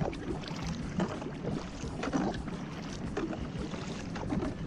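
Kayak paddling through floodwater: the paddle blades dip and splash, with irregular small splashes and knocks over a steady low rumble.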